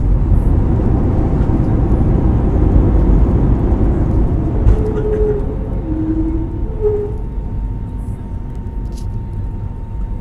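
Airbus airliner's landing rollout: a loud low rumble of engines and wheels on the runway, easing off gradually as the aircraft slows. A few short steady tones sound near the middle.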